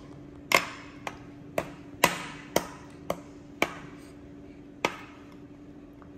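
A metal spoon knocking and clinking against a glass bowl as a thick pumpkin mixture is stirred, about two sharp ringing knocks a second, stopping about five seconds in.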